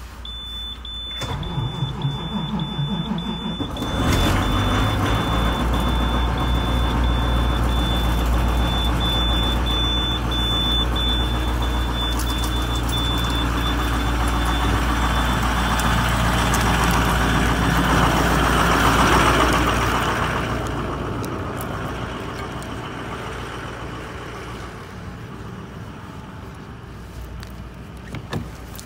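School bus diesel engine cold-started: the starter cranks for about three seconds, the engine catches about four seconds in and runs steadily, swelling around eighteen to twenty seconds and then gradually getting quieter. A steady high-pitched tone sounds through the first half.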